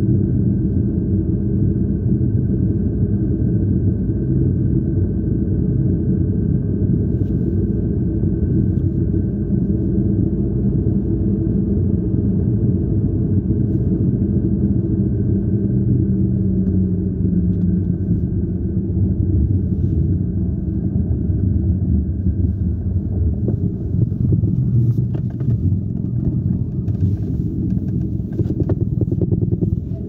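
Steady low rumble of a car driving on a snow-covered road, heard from inside the cabin: engine and tyre noise. A few light ticks come near the end.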